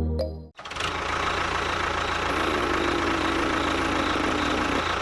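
Background music cuts off about half a second in, then a vehicle engine runs steadily, with a faint hum through the middle.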